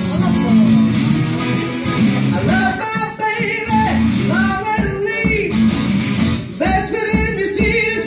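Acoustic guitar strumming a blues shuffle while a harmonica, cupped in the hands against a vocal microphone, plays notes that bend up and down over it.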